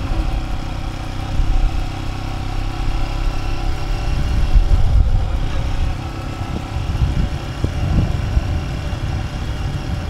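Off-road motorcycle engine running steadily while riding along at an even speed, with heavy, uneven wind rumble on the microphone.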